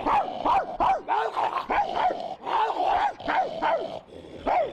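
A man imitating a dog's barking: a quick series of about a dozen short, pitched barks, roughly three a second.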